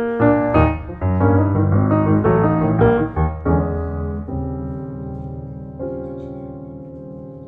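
Background piano music: a quick run of notes for about three and a half seconds, then held chords that slowly die away.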